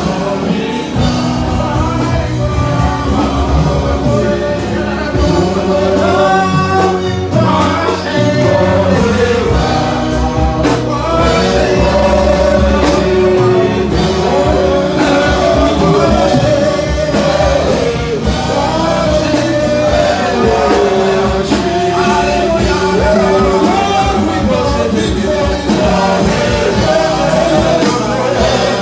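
Upbeat song with singing over drums and bass.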